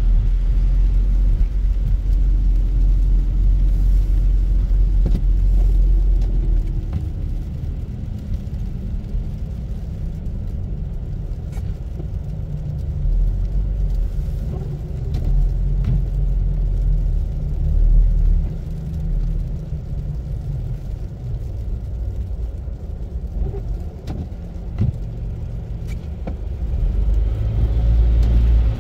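Car engine and tyre rumble heard from inside the cabin while driving on a snow-covered street, heavier for the first few seconds and again near the end, with a few light clicks.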